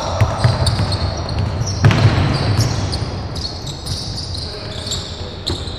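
Basketball game play on a wooden court: a ball bouncing and dribbled, with repeated short knocks, sneakers squeaking in brief high squeals, and one heavier thud about two seconds in, echoing in a large sports hall.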